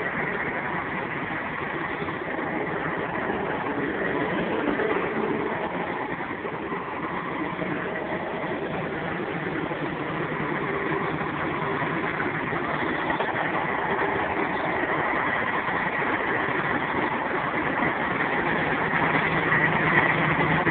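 Scania 113 Top Line truck's diesel engine running steadily at low revs, growing gradually louder over the last few seconds.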